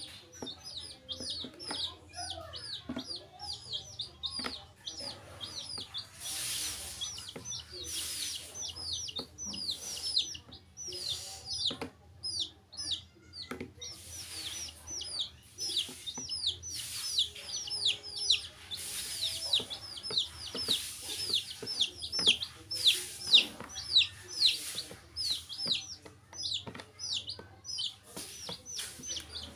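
Baby chicks peeping nonstop: short, high cheeps that each fall in pitch, several a second, overlapping from more than one chick.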